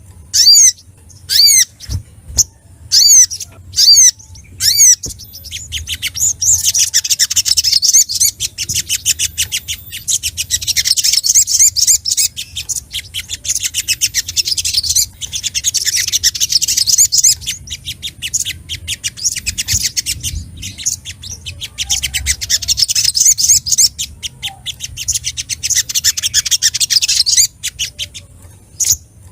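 Sogok ontong (sogon), a small sunbird, singing excitedly. It gives a few separate sharp, down-slurred chirps about a second apart, then long bursts of rapid, high chattering song with short pauses between them. This is the fired-up song of a bird calling out a rival.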